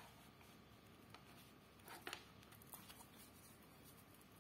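Near silence: room tone, with a few faint short ticks.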